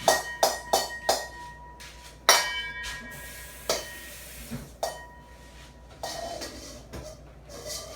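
Kitchenware clinking and knocking as a baking dish of chicken is handled: about five quick ringing clinks at the start, a louder ringing knock about two seconds in, then a few scattered knocks and a softer rustle near the end.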